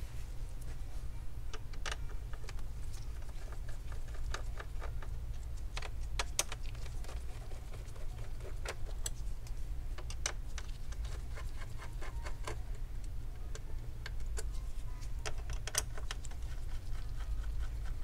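Phillips screwdriver backing out the small screws that hold an all-in-one computer's back plate: scattered light clicks and ticks of metal on metal, over a steady low hum.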